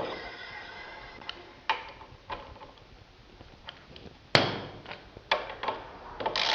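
Motorcycle brake disc lightly rubbing on freshly fitted, still-thick brake pads as the wheel turns, a faint scraping hiss with scattered clicks and knocks, the loudest knock about four seconds in. The remaining rub comes from the new pads being thick and should go once they bed in.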